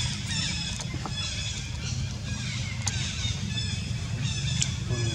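Outdoor ambience: repeated high chirping calls over a steady low rumble, with a couple of sharp clicks.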